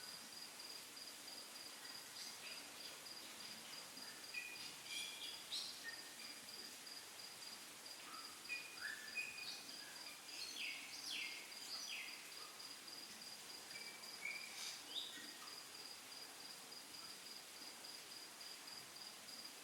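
A faint, steady, rapidly pulsing high trill like an insect's. Between about four and fifteen seconds in it is joined by a scatter of short squeaky chirps.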